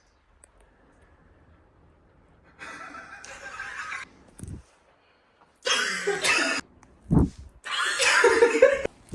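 A person laughing in a few bursts, getting louder toward the end, with a short low thump between the last two bursts.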